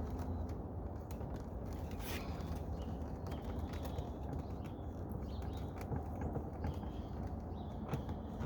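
Faint scattered plastic clicks and handling noise from working the clips on door-panel wiring harness connectors, over a steady low background hum.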